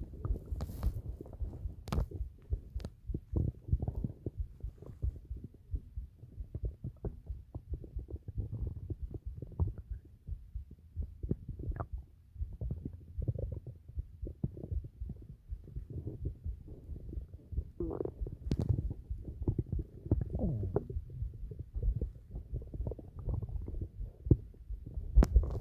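A human stomach rumbling and gurgling, recorded close up: a continuous, irregular run of low bubbling gurgles. About two-thirds of the way through come a few longer, higher gurgles that slide up and down. A couple of sharp knocks stand out, one near the start and one near the end.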